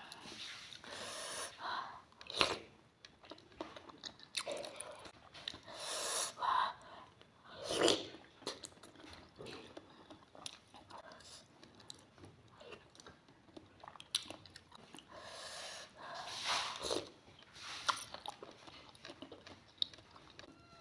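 Close-up mouth sounds of someone eating somay (Indonesian steamed fish dumplings) thick with peanut sauce: wet, irregular chewing with sharp smacks and clicks.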